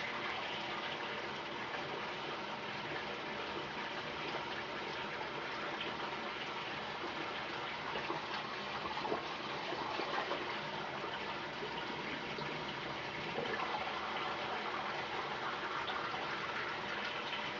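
Tap water running, a steady even rush that keeps on without a break.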